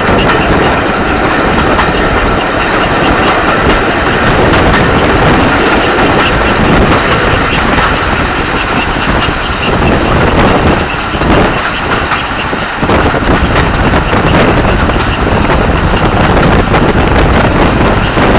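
Steam-hauled passenger train running along the line, heard from an open carriage window: a loud, continuous rush of wheel and running noise mixed with wind on the microphone, easing briefly about two-thirds of the way through.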